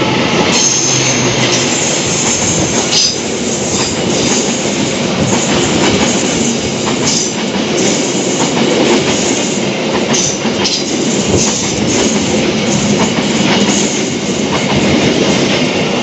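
Passenger coaches of the KA Mutiara Selatan express train passing close by on the adjacent track: a loud, steady rush of wheels on rail with a rapid run of clicks and clatter as the wheels cross the rail joints.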